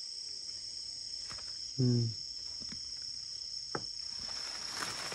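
Crickets trilling steadily at a high pitch. About two seconds in there is a brief low hum, and near four seconds a faint click.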